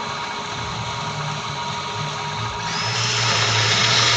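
A small electric power tool running steadily; about two and a half seconds in its sound gets louder and brighter, with a high hiss, as it bears on the work, here taking the head off a small screw.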